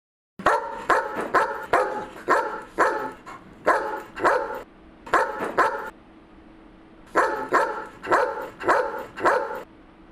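A large dog barking repeatedly in three quick runs of sharp barks, with short pauses between the runs.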